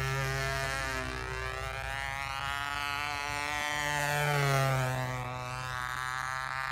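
Radio-controlled model airplane's motor droning as the plane flies passes overhead, getting louder about four seconds in and dropping in pitch as it goes by.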